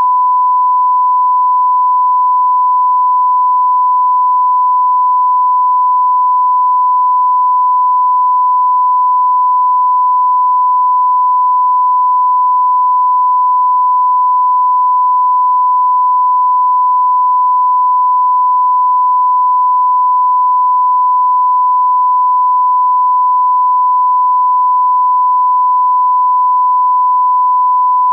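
Continuous 1 kHz sine-wave test tone: a single pure pitch held steady and unbroken at constant level, a broadcast line-up tone of the kind played with a test card.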